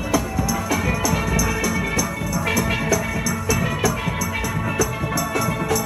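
Steel band music: steel pans playing melody over drums with a steady beat.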